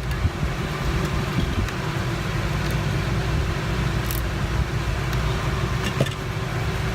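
Steady low droning hum of background machinery or air movement, with a few faint small ticks about four and six seconds in.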